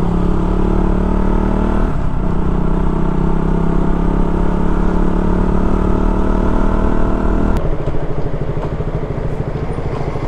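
KTM Duke single-cylinder motorcycle engine running while riding, a steady engine note that breaks briefly about two seconds in. From about seven and a half seconds the steady note gives way to a lower, evenly pulsing beat at low revs.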